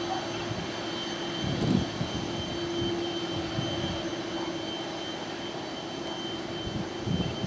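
Boeing 747-400's four GE CF6 turbofans running at low taxi thrust. There is a steady whine over a low rumble that swells briefly about two seconds in and again near the end.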